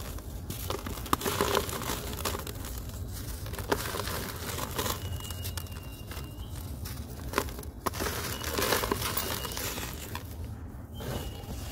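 Hands crushing and crumbling a dry, gritty dirt block, with grains and dust falling into a tub. It makes a steady gritty crackle broken by a few sharp crunches.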